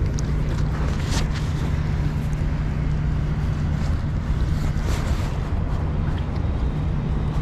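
Steady rush of fast river current with wind buffeting the microphone as a low rumble, broken by a couple of brief splashes from a steelhead thrashing in the landing net, about a second in and again near five seconds.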